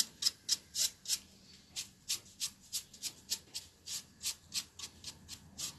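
Quick, scratchy strokes of a paintbrush worked back and forth over the moulded page edges of a book-shaped box, laying on metallic paint, about three to four strokes a second. A single sharper tap comes right at the end.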